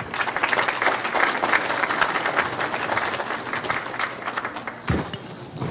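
Audience applauding, many hands clapping together, then dying away after about four and a half seconds.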